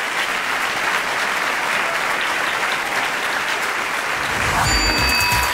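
A large seated audience applauding steadily. A little over four seconds in, music with a steady bass beat starts up under the clapping.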